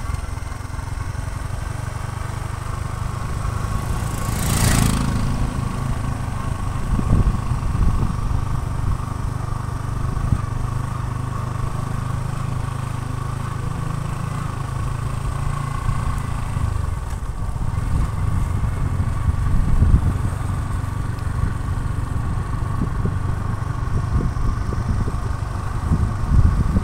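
Motorcycle engine running steadily while riding, with wind noise on the microphone. A brief whoosh comes about four and a half seconds in.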